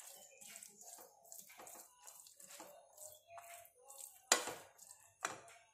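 Metal perforated spoon stirring and pressing a moist boondi mixture in a nonstick kadai: a run of soft scrapes and clicks, with two louder clinks of the spoon on the pan about four and five seconds in.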